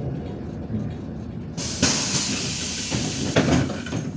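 Inside a MAZ-105 city bus: low rumble of the running bus, then about one and a half seconds in a sudden loud compressed-air hiss with a few clunks, lasting about two and a half seconds, as the pneumatic system vents at a stop.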